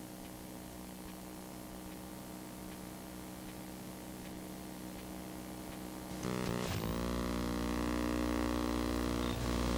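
Low electronic hum made of several steady tones, from videotape playback. About six seconds in, a louder electronic drone with many tones comes in, wobbling in pitch for a moment before holding steady.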